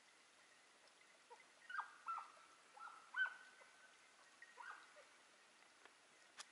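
Faint yelps of a hunting hound, five or six short calls from about a second and a half to five seconds in, each dropping in pitch.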